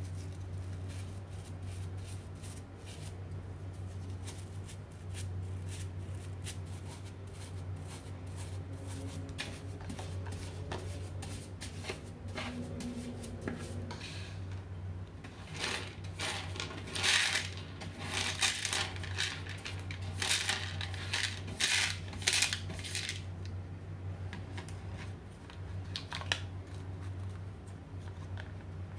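Small metal screws and nails clinking and rattling as a mini brush sweeps them into a plastic dustpan. Faint scattered ticks at first, then a loud run of clattering in the middle, with a few last clicks near the end.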